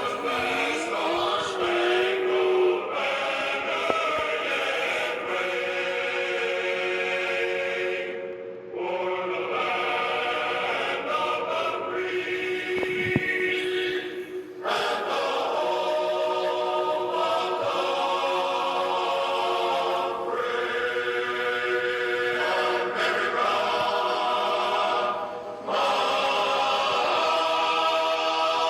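Slow, solemn choral music of long sustained chords, each held for several seconds before moving to the next.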